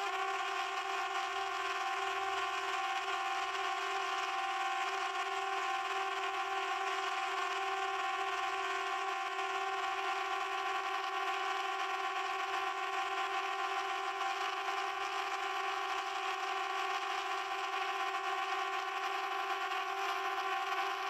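Quadcopter drone's propellers whining steadily at one pitch over a hiss.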